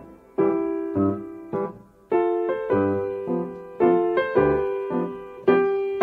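Solo piano music: slow chords and single notes struck every half second to a second, each left to ring and fade before the next.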